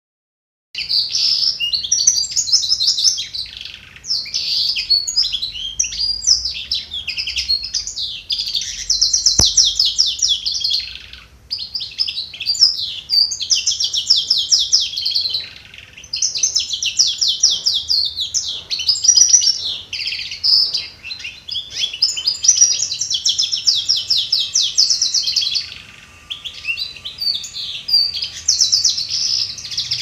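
A domestic canary singing goldfinch-style song that it was trained to, in long phrases of rapid trills and twittering with short breaks between them. There is a single sharp click about nine seconds in.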